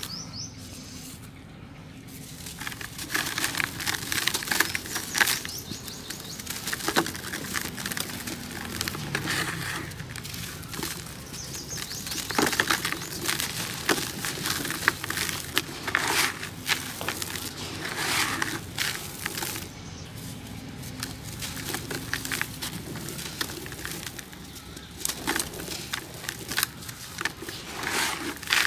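Dry cement-and-sand lumps crumbling and crunching in bare hands, gritty powder falling into a bucket, with irregular crisp crackles throughout.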